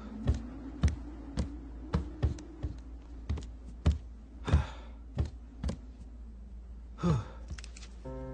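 About a dozen sharp smacks and thuds at uneven intervals, like the blows of a filmed fist fight, over a low steady hum. Two short sounds falling in pitch come about four and a half and seven seconds in.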